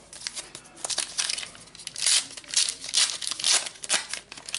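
Plastic wrapper of a trading-card booster pack crinkling as it is torn open and the cards are pulled out: a run of sharp, crackly rustles, loudest in the second half.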